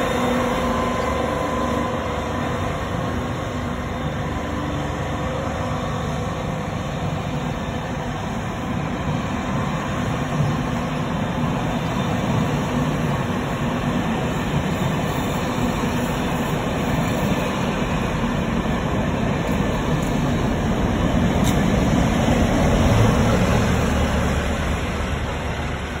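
Rake of passenger coaches rolling past on the track behind Class 55 Deltic D9000 'Royal Scots Grey', a steady rumble of wheels on rail. The Deltic's twin Napier Deltic two-stroke engines are heard only briefly at the start, fading away. The rumble swells again near the end.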